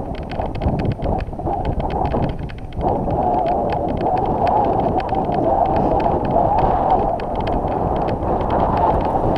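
Wind buffeting the microphone of a camera carried on a moving bicycle, a dense rushing noise that surges and dips, with many light clicks and rattles over it.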